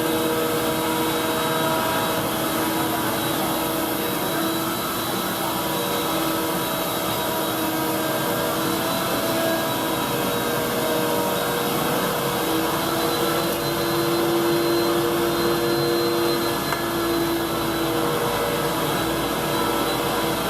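Steady whirring hiss of woodworking shop machinery with a few constant hum tones, unbroken throughout.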